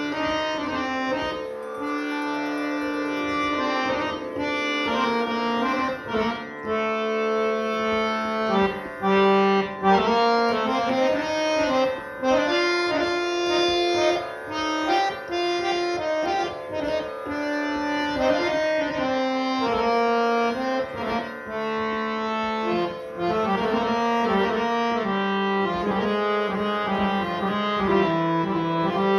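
Antique hand-pumped harmonium with Shiv Charan reeds, freshly restored, played solo: a melody of held reed notes, often several sounding together, in phrases with short breaks between them.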